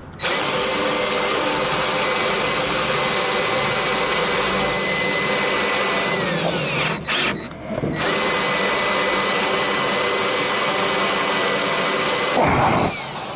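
Handheld electric power tool running in two long runs, a steady motor whine that winds down each time it is let off, with a short pause between.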